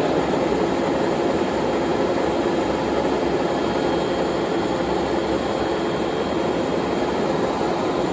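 1954 Bullard Cutmaster 54-inch vertical turret lathe running under power: a steady mechanical hum from its motor and gearing, with a few faint steady tones.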